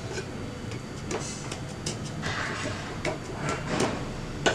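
Stuffed wheat paratha dry-cooking on a hot tawa: a faint steady hiss with scattered small crackles and ticks, and a sharper click near the end.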